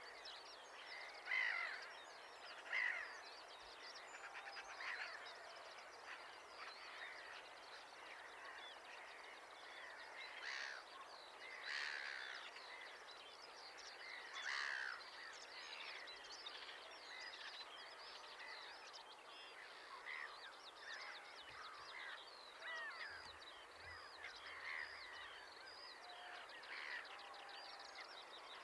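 Outdoor bird chorus: many birds calling and chattering at once, with a few louder calls standing out now and then over a faint steady background hiss.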